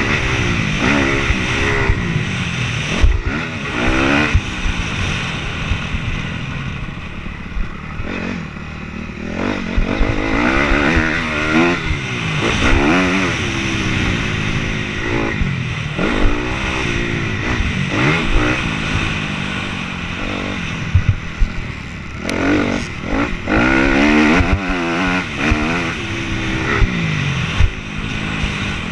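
Motocross dirt bike engine, heard from a helmet-mounted camera, revving up and falling back again and again as the rider works the throttle along the track. There are a few sharp knocks along the way.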